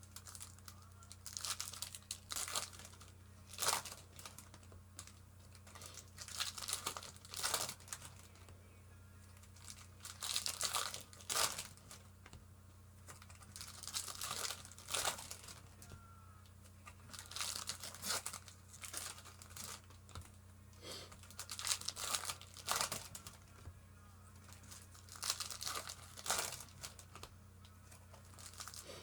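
Foil trading-card pack wrappers being torn open and crinkled, in irregular bursts every second or two, over a steady low electrical hum.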